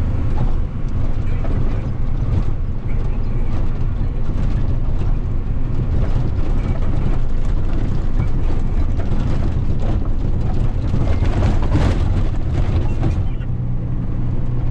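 Box truck's engine running while driving, heard from inside the cab, with road noise and frequent rattles and knocks. A denser burst of clattering comes about eleven to thirteen seconds in, and the engine note changes near the end.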